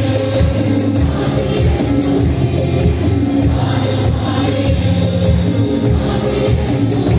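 Live instrumental worship music from a small band: electric bass and electric guitar with electronic percussion pads struck with sticks, keeping a steady beat under held bass notes.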